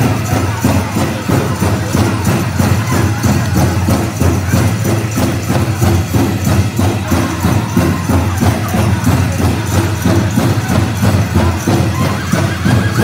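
Powwow drum and singers performing a chicken dance song: a steady, unbroken drumbeat with the jingling of the dancers' leg bells over it.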